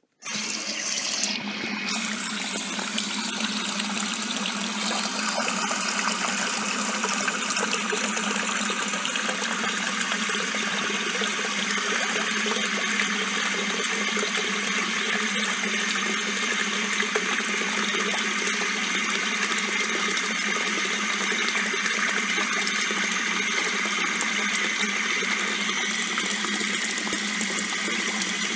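Steady rushing water that starts abruptly and runs on evenly without change.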